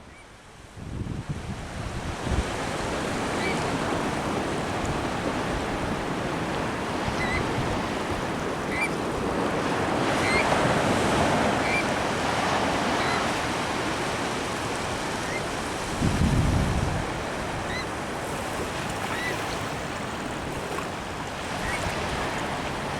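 Pacific surf washing and breaking steadily on the beach, swelling about halfway through. A gust of wind rumbles on the microphone a little later, and there are faint high chirps every second or two.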